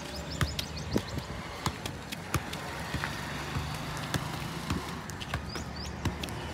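Football being juggled: regular dull thuds of the ball struck off the foot and knee, about two touches a second.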